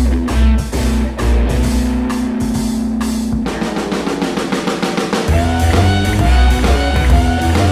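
Background rock music with a drum kit, bass and guitar; a little past the middle the bass drops out for a couple of seconds under a drum fill, then comes back in.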